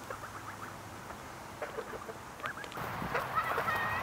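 Embden geese calling: a few short, quiet calls, then about three seconds in louder, more frequent honking from several birds.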